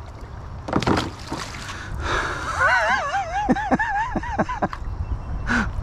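A small pickerel is released back into the creek and splashes into the water about a second in. It is followed by a high, wavering warbling call lasting about two seconds, broken by a few light knocks.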